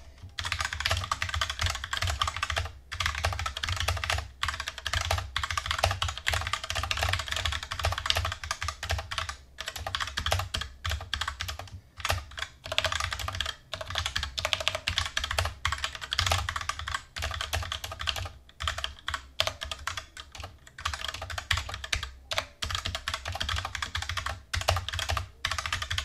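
Fast, continuous typing on a Cooler Master CK552 full-size mechanical keyboard with Gateron Red linear switches: a dense run of key clacks broken by a few brief pauses.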